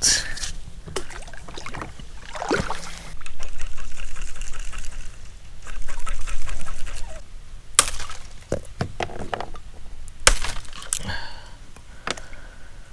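Water sloshing and trickling around a kayak, with a few sharp knocks.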